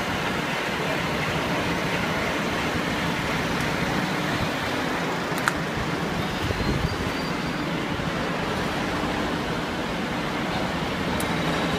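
Steady rumble of idling fire engines and ambulances, with a low engine hum; an ambulance drives slowly past close by about six seconds in.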